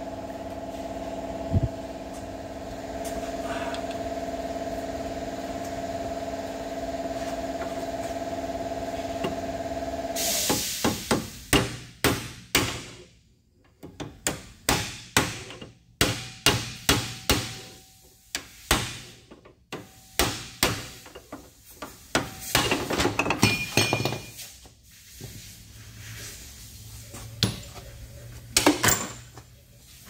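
Club hammer striking steel again and again, knocking the rear wheel hub bearing out of a GMC Acadia's knuckle. The blows come in quick irregular runs from about a third of the way in until near the end, after a steady hum.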